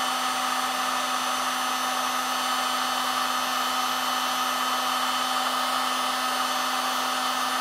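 Electric heat gun running steadily, a fan hum and whine under a rush of hot air. It is blowing into a steel drill chuck to warm and expand it before it is tapped back onto the spindle.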